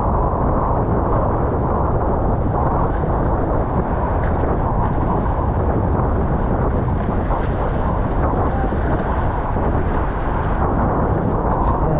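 Steady wind buffeting the camera microphone, with water rushing past the hulls of a Nacra 20 beach catamaran sailing fast.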